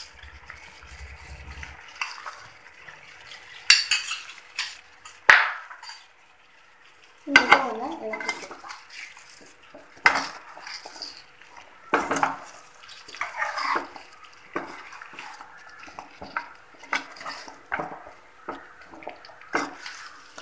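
A spoon stirring in a kadai, scraping and knocking against the pan in irregular clinks, with clusters of louder strokes.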